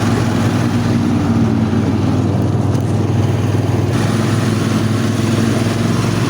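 Buran snowmobile's two-stroke engine running steadily.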